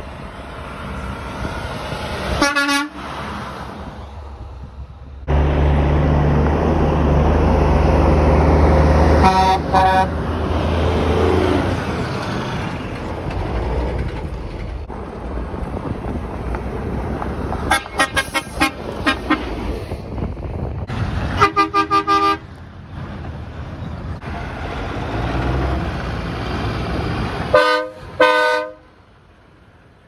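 Truck air horns blowing, one blast at a time. There is a single blast early, another about a third in, a quick string of short toots a little past halfway, a longer blast soon after, and two blasts near the end. Between them comes road noise from a moving car, and a loud diesel truck engine passes close for several seconds.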